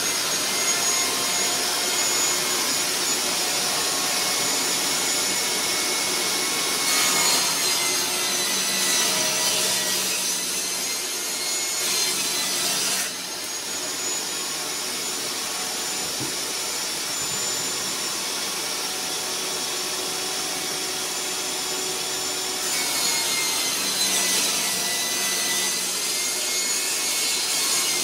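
Table saw running steadily with a whining motor, its blade ripping pine boards lengthwise. It gets louder twice, about a quarter of the way in and again near the end, as a board is fed through the blade.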